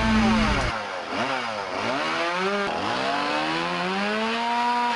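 Two-stroke chainsaw running at high speed, its engine pitch dipping and climbing back several times as the chain bites into branches and frees again.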